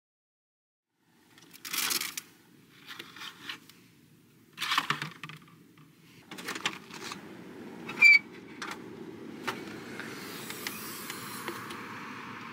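Rustling and bumping of movement inside a small kei van, with a sharp metallic clink about eight seconds in. Near the end a steady wash of surf and wind takes over.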